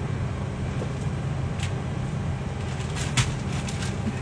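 Steady low hum of an airliner cabin's air system, with a couple of sharp metallic clicks from a steel mesh cage being handled. The louder click comes about three seconds in.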